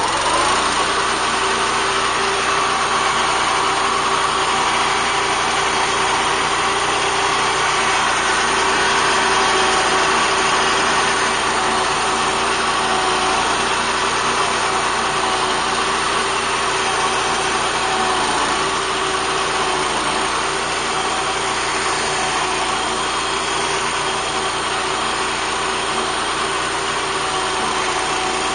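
BCS walk-behind tractor's engine running a Zanon 40-inch finish mower deck while it cuts grass. The engine comes up in speed just at the start, then runs steadily under load.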